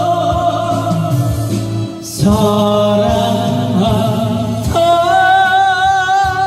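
A Korean popular song sung with band accompaniment. The singer holds a long note with vibrato, starts a new phrase about two seconds in, and sings the word '사랑한다', then holds another long note near the end.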